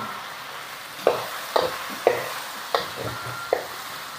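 Sliced beef sizzling in oil in a steel wok while a metal ladle stirs it, the ladle knocking and scraping against the pan about every half second.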